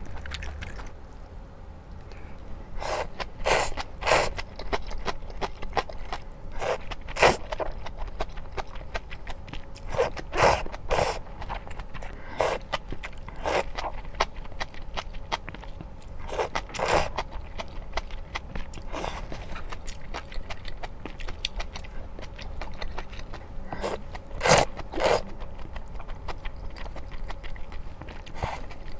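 Close-miked eating: a mouthful of spicy stir-fried small octopus with somen noodles being bitten and chewed, heard as short sharp smacks and crunches at irregular intervals, every second or few.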